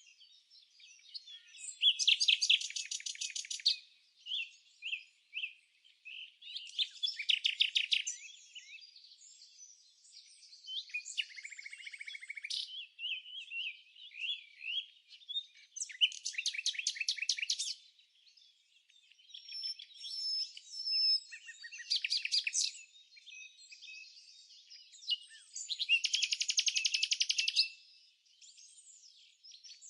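Songbirds singing: about five fast rattling trills, each one to two seconds long, come every few seconds. Shorter chirps and whistled notes fill the gaps between them.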